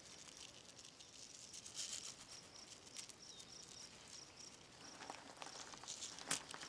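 Faint pattering and small ticks of dry granular garden fertilizer being sprinkled by hand around plants, with one sharper click near the end. A high chirp repeats about three times a second in the background through the middle.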